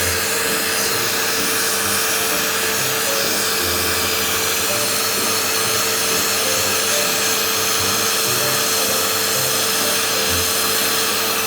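Oneisall pet grooming vacuum running, a steady motor whine over a loud rush of air as it sucks up clipped dog hair, with background music underneath. It cuts off suddenly at the very end.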